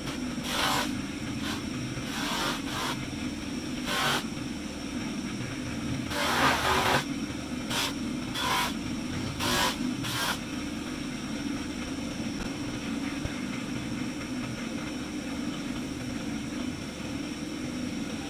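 Electric motor running a buffing wheel steadily, with a short rushing scrape each time a carved marble figure is pressed against the spinning wheel to polish it. There are about eight such contacts in the first ten seconds, one longer than the rest, and then only the motor runs.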